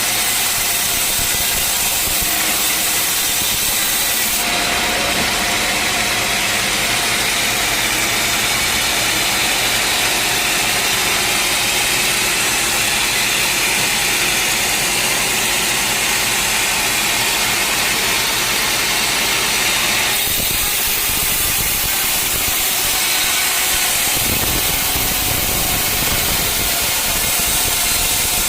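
Sawmill running steadily while sawing a teak log: the hum of the mill's engine under a dense, high hiss from the cut. The sound changes abruptly a few times.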